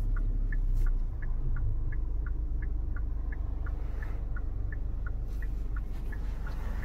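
Hyundai SUV's turn-signal indicator ticking inside the cabin, about three clicks a second alternating between a higher and a lower tick, over a low engine and road rumble.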